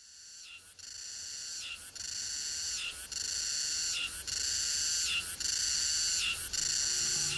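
A high-pitched animal call repeating about once a second, each unit ending with a short break. It fades in from silence at the start and grows louder over the first few seconds.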